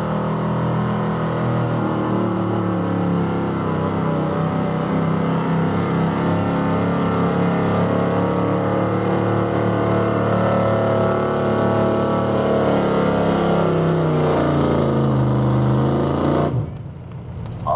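1980s Ford F-series pickup's engine running at full throttle under heavy load as it drags a weight-transfer pulling sled over dirt. The engine note holds high, then drops over the last few seconds as the truck slows under the sled, and the sound cuts off suddenly near the end.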